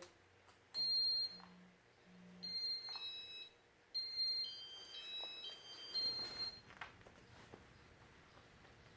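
Electronic beeps from a Casablanca California Zephyr ceiling fan's control as demo mode is started: a string of short, clean high tones stepping between several pitches, with a few soft clicks.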